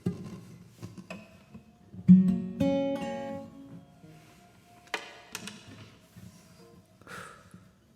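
Acoustic guitar playing slow, sparse strummed chords that ring out and fade between strums: worship music.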